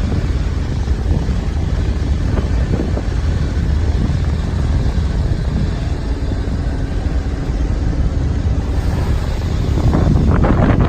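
Wind buffeting the microphone aboard a sailboat under way: a steady low rumble, with a louder surge near the end.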